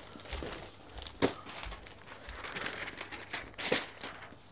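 Crinkling and rustling of packed clothes and their plastic packing being handled, with two sharper crackles, one about a second in and one near the end.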